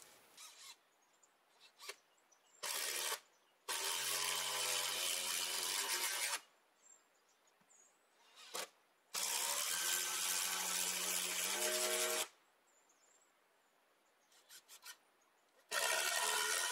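Power drill driving large screws into the joints of a spruce pole frame. The motor runs under load in a brief burst, then in three long runs of a few seconds each, with small knocks between runs.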